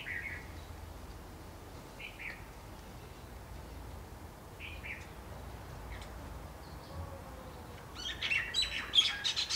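Birds calling: a few brief faint chirps a couple of seconds apart, then about eight seconds in a loud rapid flurry of short calls.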